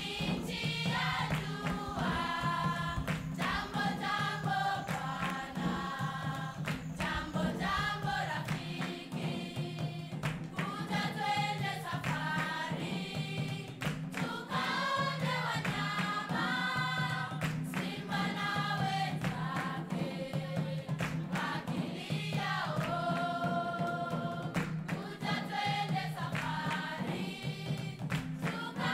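Background music: a choir singing, with a steady low tone held underneath.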